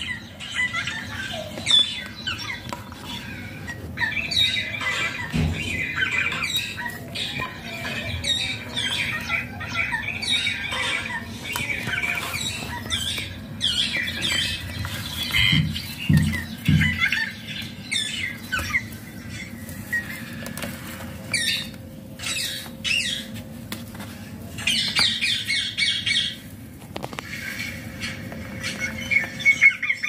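Rose-ringed parakeet calls: a run of short squawks and chirps with quick rises and falls in pitch, and scattered sharp clicks and taps, with a few dull bumps near the middle.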